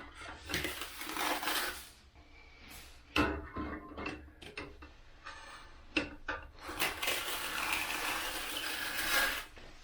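Steel finishing trowels scraping and sliding over wet mortar on a shower curb, with a few sharp metal taps. One scraping stroke comes about a second in and a longer one in the second half.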